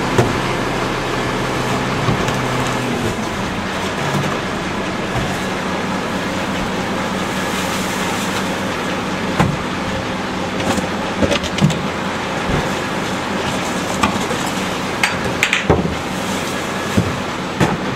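Rear-loader garbage truck's engine running steadily at the curb, its note stepping down about three seconds in. From about nine seconds on, a series of knocks and bangs as trash cans are tipped and knocked against the rear hopper and trash drops in.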